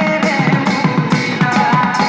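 Live folk ensemble of dhol barrel drums playing a quick, steady rhythm, with bright high hits about four times a second and a melody line stepping in pitch above the drums.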